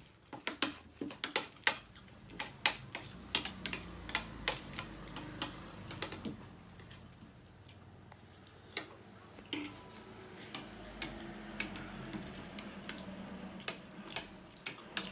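Metal spoons and forks clicking and scraping against ceramic plates as several people eat, with quick clicks coming thick for the first half and more sparsely later.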